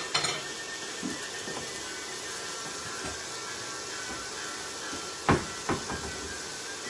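Onions frying in oil in a pot: a steady sizzle, with two sharp knocks about five seconds in.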